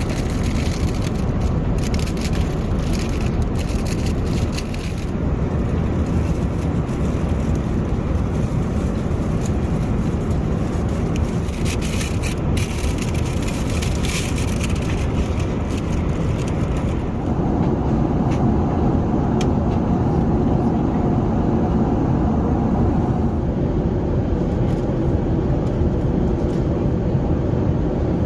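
Steady cabin noise inside an Emirates Airbus A380, with scattered clicks and rattles in the first half. About 17 seconds in it grows a little louder and a steady hum joins in.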